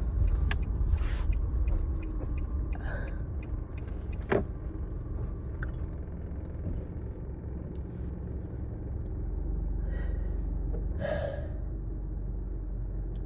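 Steady low road rumble inside a moving car's cabin, with a few short, sharp breaths from a congested woman with a cold: about a second in, around three seconds, and twice near ten and eleven seconds. A single sharp click sounds about four seconds in.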